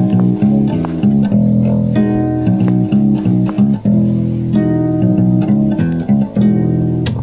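A guitar being played: a continuous run of plucked and strummed chords with no singing.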